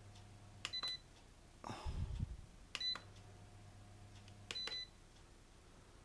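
Control-panel buttons of an ERGO FS 1677 floor fan clicking, each press answered by a short high beep, three times. Between the second and third beep the motor hums briefly, then stops: the fan keeps cutting out, which the repairer suspects is a power-supply fault. A brief handling thump comes about two seconds in.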